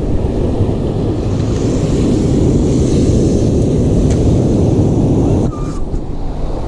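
Wind rumbling on the microphone at the surf line, with breaking waves behind it. The rumble eases suddenly about five and a half seconds in.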